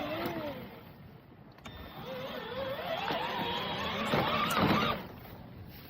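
Electric motors of a 24V four-wheel-drive kids' ride-on car whining. The whine winds down at the start, then after a short pause rises steadily in pitch for about three seconds as the car speeds up, and stops about five seconds in.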